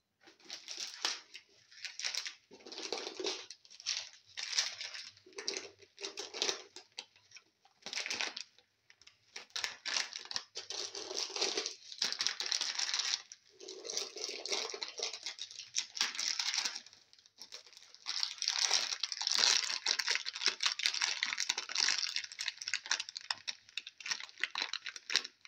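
Ghee crackling and sizzling as it melts and heats in a pan. The crackle comes in irregular spells and runs more continuously over the last several seconds.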